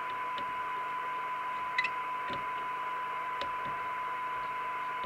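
Team Lancaster CB radio receiving a tone-modulated signal from a signal generator: a steady test tone over receiver hiss from its speaker, heard while its receiver IF transformers are being peaked. A faint tick about two seconds in.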